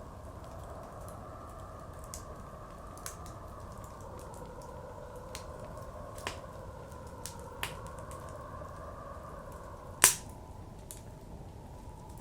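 Wood fire crackling with scattered sharp pops, one much louder snap about ten seconds in, over a steady howl of blizzard wind that slowly swells and eases.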